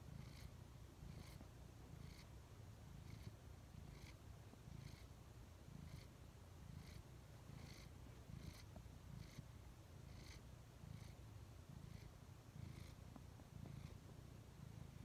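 Elderly ginger tabby cat purring close to the microphone: a low, quiet rumble that swells and eases with each breath, with a faint hiss at each breath about once a second.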